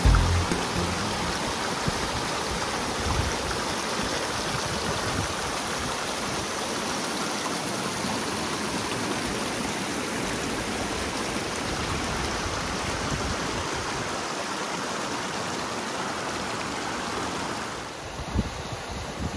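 Alpine mountain stream rushing and splashing over rocks in a steady, even rush. Near the end it drops off and gusts of wind buffet the microphone.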